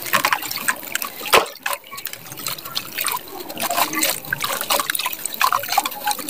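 Dry gray sandy lumps crushed and crumbled in the hand: many small gritty cracks, one sharper crack about a second and a half in, over the hiss of fine powder pouring down in a stream.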